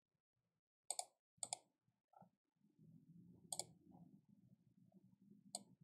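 Computer mouse button clicking four times, short sharp clicks with gaps of one to two seconds between, over near silence.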